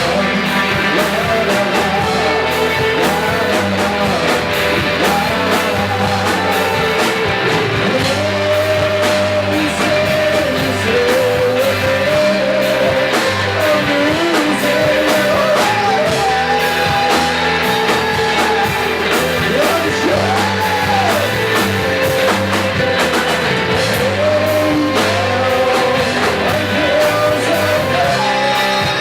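Rock music with a singer over guitar and a steady beat.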